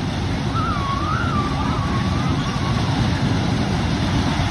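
A siren sounding on a Himalaya carnival ride: a thin wavering tone that wobbles up and down in pitch from about half a second in, fading out after about two seconds, over the steady noise of the ride running.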